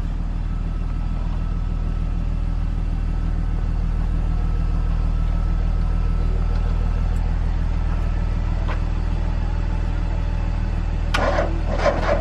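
A motor vehicle's engine running steadily, a low drone. Near the end a fast rhythmic pattern of beats comes in over it.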